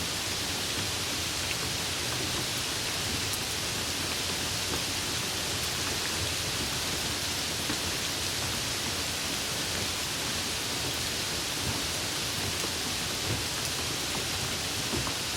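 Steady rain falling during a storm: an even hiss with a few faint drop ticks.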